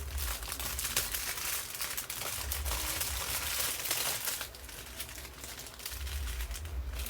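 Small plastic bags of diamond-painting drills crinkling as they are handled, with a dense run of small clicks that is busiest for the first four seconds or so and then lighter.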